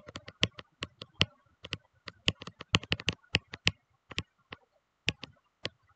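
A stylus tapping on a tablet's writing surface as a formula is handwritten: an irregular run of sharp clicks, several a second, thinning out near the end.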